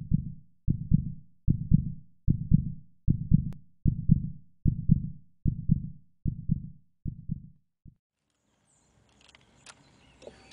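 Slow, regular low thumps like a heartbeat sound effect, about one every 0.8 seconds, that stop about eight seconds in, leaving faint background noise.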